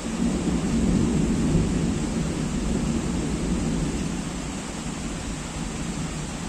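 A rumble of thunder over steady heavy rain. The rumble swells within the first second or two, then slowly fades while the rain keeps on.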